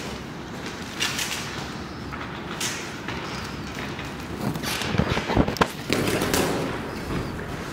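Boxing gloves smacking during sparring: scattered punches early on, then a quick flurry of sharp smacks in the middle, over gym room noise.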